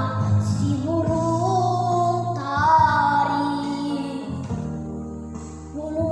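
A young girl singing long, sliding notes over an instrumental backing track. The voice drops away for a moment near the end while the accompaniment carries on, then comes back in.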